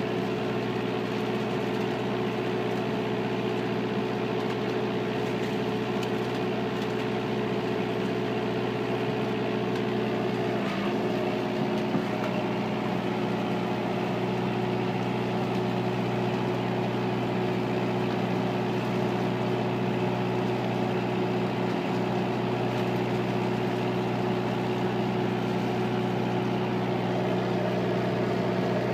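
Oyster-farming work boat's engine running steadily, an even hum with a brief dip in pitch about eleven seconds in.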